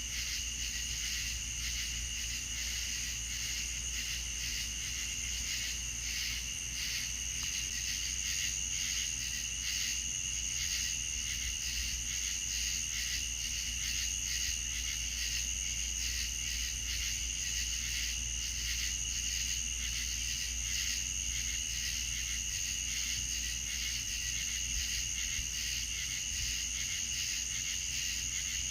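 Night insects, crickets, chirping in a steady chorus: a continuous high trill and a lower pulsing trill over a low steady hum.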